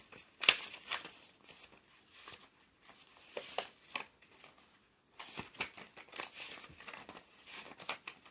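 Paper pages being leafed through: a run of short, irregular crinkly rustles, the loudest about half a second in.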